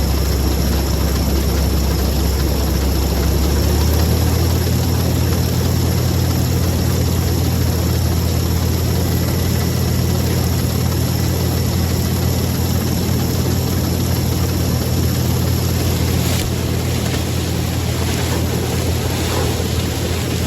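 Gleaner combine harvester running, a loud steady engine and threshing-machinery drone with no let-up. Its low hum steps up in pitch about four seconds in and then holds steady.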